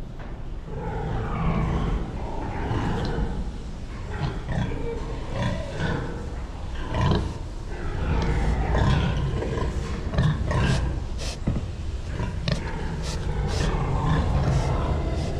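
Domestic pigs grunting in a pig barn over a steady low rumble, with a run of short sharp sounds in the last few seconds.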